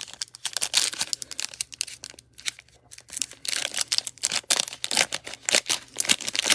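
Plastic wrapper of a trading-card pack crinkling and tearing as it is handled and opened, with a quieter stretch about two seconds in and denser crinkling in the second half.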